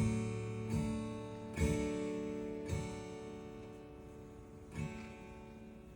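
Acoustic guitar playing a sparse intro: five chords plucked at uneven intervals, each left to ring out and fade, with the playing growing quieter throughout.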